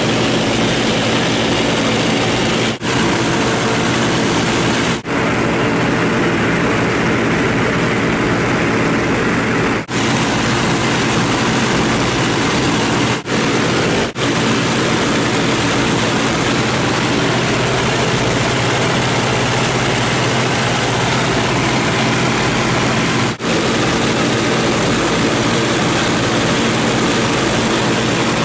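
A 1929 Ford Tri-Motor's nine-cylinder Pratt & Whitney radial engines droning steadily in cruising flight, heard inside the cabin. A few momentary dropouts briefly break the sound.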